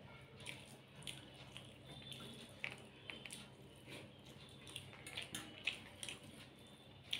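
Rice and curry being mixed by hand on a steel plate and chewed with the mouth close to the microphone: soft wet squishes and irregular mouth smacks, faint, over a steady low hum.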